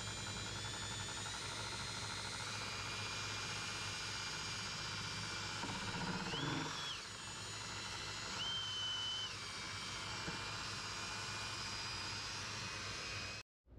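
Electric power tool motor running steadily with a high whine, a high tone briefly stepping up and back twice in the middle; it cuts off abruptly near the end.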